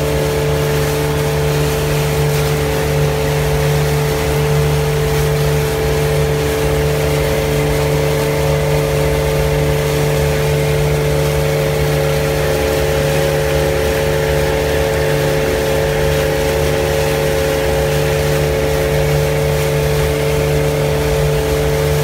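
Small boat's tiller-steered outboard motor running at a steady speed with the boat under way, an even hum that holds one pitch throughout.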